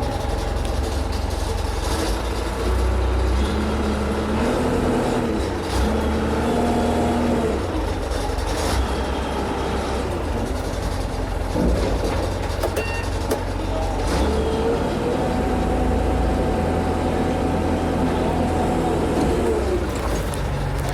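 Backhoe's diesel engine running steadily under load as it digs, with tones that step up and down in pitch and a few sharp knocks.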